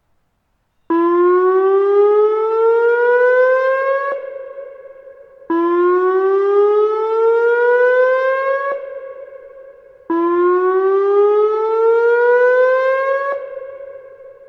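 Whelen 2903 electronic dam failure warning siren sounding its whoop signal during a test: three loud rising whoops, each climbing in pitch for about three seconds, then breaking off and fading over a second or so. The first begins about a second in, and a new whoop starts roughly every four and a half seconds.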